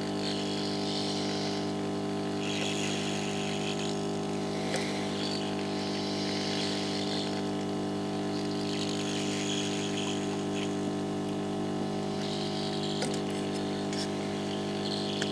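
Hot air rework station blowing on a chip to melt its solder: a steady fan hum with an airy hiss that comes and goes every couple of seconds.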